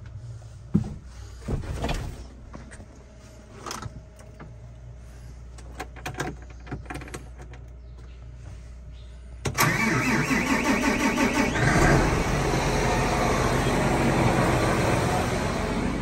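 A few clicks and knocks from inside a tractor cab. Then, about two-thirds of the way in, the tractor's engine cranks with a rapid pulsing, catches, and runs steadily.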